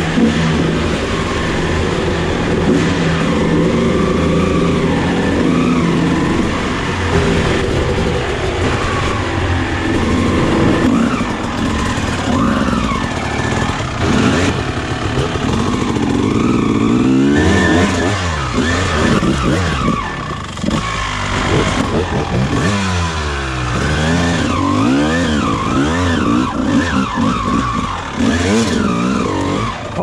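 1999 Honda CR250R, a 250 cc single-cylinder two-stroke dirt bike, running under load, fairly steady at first, then revving up and down over and over in the second half as it picks through rough single track.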